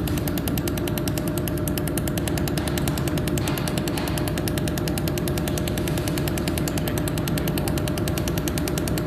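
Pulsed laser welder for mold repair firing an automatic weld pass: rapid, evenly spaced clicks, several a second and at a constant rate, over the steady hum of the machine.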